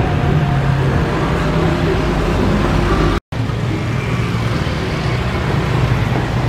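Airbus A330 jet engines running as the airliner rolls out on the runway after landing. The sound drops out abruptly for an instant a little past halfway at an edit, then a steady jet rumble follows from a narrow-body airliner on final approach.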